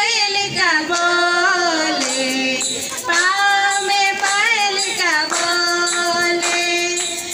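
A group of children and women singing a song together in unison, some notes held long, with hand claps keeping the beat.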